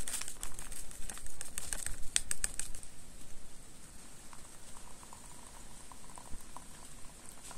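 A quick run of light clicks and taps over the first few seconds, then a few faint short chirp-like tones, over a steady faint hiss.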